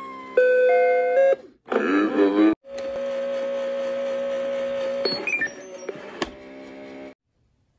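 Big Mouth Billy Bass singing-fish toy's sound chip, being tampered with, putting out glitchy square-wave synth tones. First a couple of steady beeping tones that step in pitch, then a short warbling burst, then a long steady tone with hiss and small blips. It cuts off suddenly about seven seconds in.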